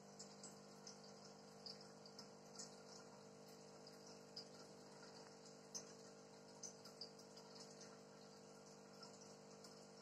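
Faint aquarium bubbling: air from an air stone rising and popping at the water surface as a scattering of small irregular ticks, over a steady low hum from the aquarium pump.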